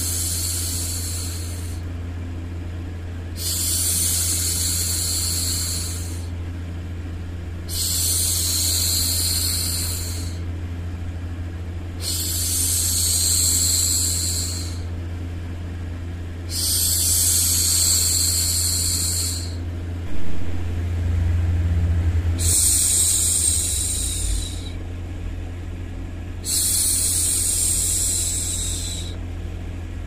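A woman's long 'shhh' hushing, repeated about every four seconds, over a steady low rumbling noise bed. There is a brief low thump about two-thirds of the way through.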